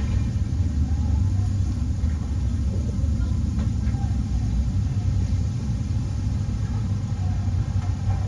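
Deep, steady rumbling drone with no clear pitch, the kind of 'strange sound in the sky' recording presented as coming from overhead.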